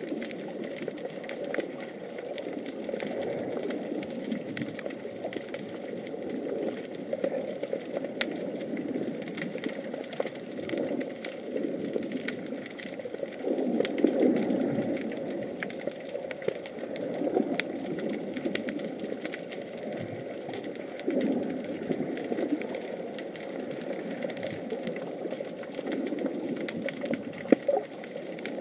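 Muffled underwater sound picked up through an action camera's housing: a low, uneven rush of moving water with many faint scattered clicks.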